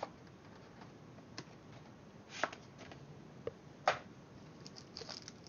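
Trading cards and their packaging being handled on a table: a few scattered light clicks and taps, the sharpest about four seconds in, then soft crinkly rustling near the end.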